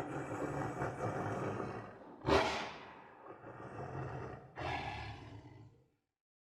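Tiger roaring in a series of calls: one fading away at the start, a loud roar about two seconds in, and a weaker one a couple of seconds later.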